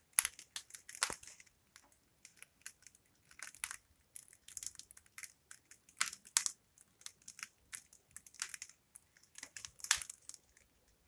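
Crust of a freshly baked white loaf crackling as it cools: irregular small sharp crackles and pops, scattered through the whole stretch with a few louder ones.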